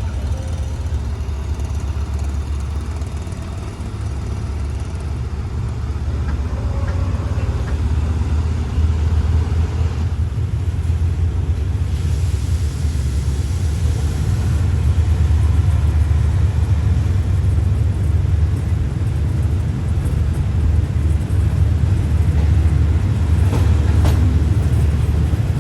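Passenger train running and gathering speed after pulling out of a station: a steady low rumble that grows gradually louder.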